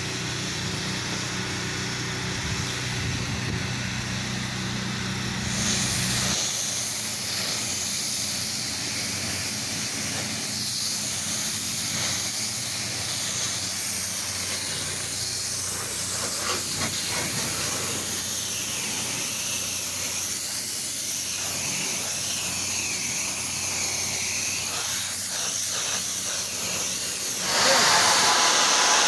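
Pressure-washer spray hissing steadily, with the washer's engine humming low under it for the first few seconds. The spray gets louder near the end.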